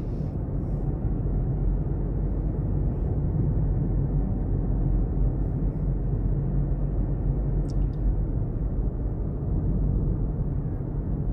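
Steady road and engine rumble inside a moving car's cabin, with a faint click about eight seconds in.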